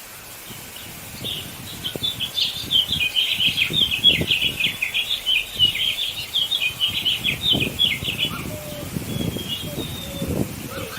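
Birds chirping in a dense, rapid chatter of short high calls, which stops about eight seconds in. Irregular low rustling runs underneath and grows stronger near the end.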